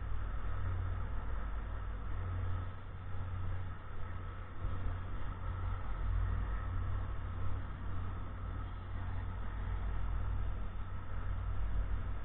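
Steady hum of distant highway and city traffic, a continuous low rumble that swells and fades slightly under a faint even hiss.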